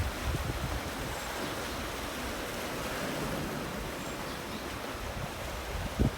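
Rough sea surf washing on the shore in a steady hiss, with wind rumbling on the microphone. A brief knock near the end.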